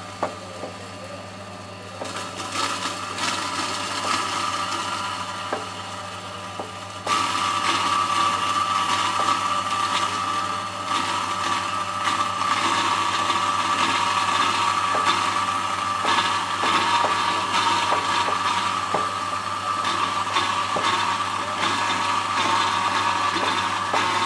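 Electric grinding machine running, grinding sliced onions into paste: a steady motor hum with scattered knocks, getting louder about seven seconds in.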